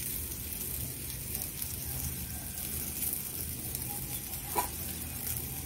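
Egg-and-potato fritters sizzling steadily in shallow hot oil in a kadai, with one small click near the end.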